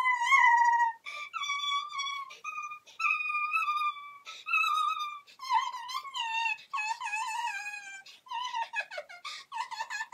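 Dog whining in long, wavering high-pitched cries, breaking into quick short whimpers over the last couple of seconds.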